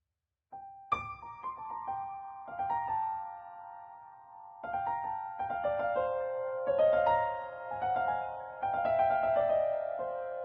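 Background piano music: soft melodic piano notes begin about half a second in, with a fuller chord about a second in and denser playing from the middle onward.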